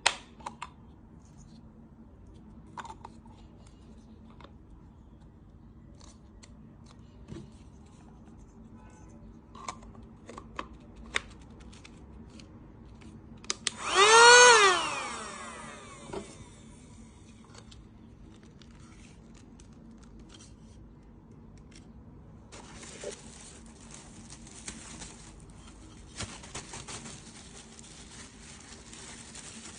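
Portable handheld vacuum cleaner switched on briefly about halfway: its motor whines up in pitch and then winds down over about two seconds. Scattered clicks and knocks come before it, and a steady airy hiss runs over the last several seconds.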